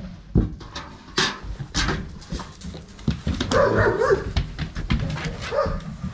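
Pit bulls play-fighting: scuffling knocks and scrapes throughout, with a dog barking briefly about three and a half seconds in.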